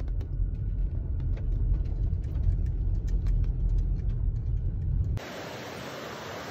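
Steady low rumble of a car driving along a road, heard from inside, with faint light ticks scattered over it. About five seconds in it cuts off suddenly to the even rushing of a shallow stream pouring over rocks.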